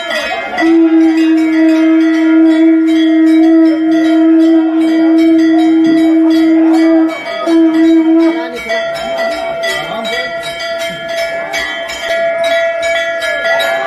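Temple bells ringing rapidly and continuously during a puja. A horn is blown over them in one long steady blast of about six seconds, then a short second blast.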